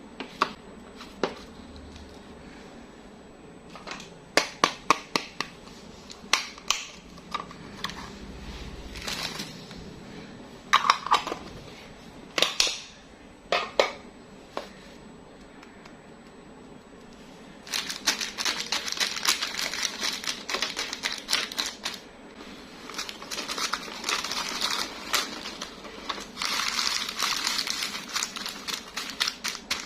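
Candy packaging being handled: sharp plastic clicks and taps through the first half, then continuous crinkling of a plastic wrapper from a little past halfway.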